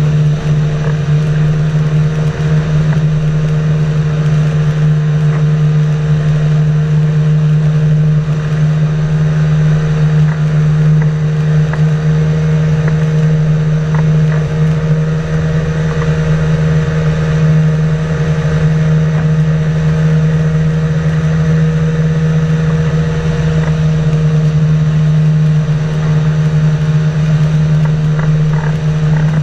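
Flying inflatable boat's pusher engine and propeller running steadily in cruise flight, one constant drone.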